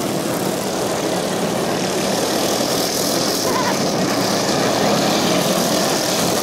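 Engines of several racing ride-on lawnmowers running together at speed: a loud, steady drone.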